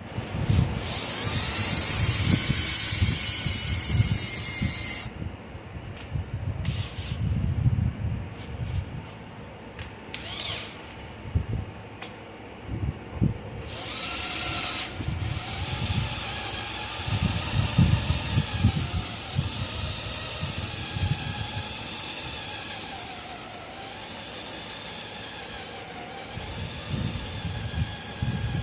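Power tools working on steel frame metal. A loud hissing run with a whine comes first, then separate clicks and knocks, then a tool running again with a whine that wavers in pitch as it is loaded.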